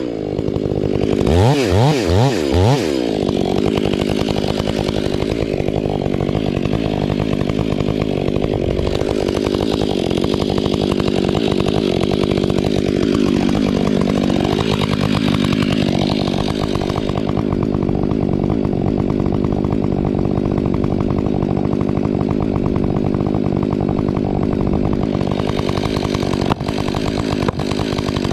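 Two-stroke chainsaw revved in a few quick blips, then held at full throttle cutting steadily into wood. About halfway through, its pitch sags briefly under the load and then picks back up.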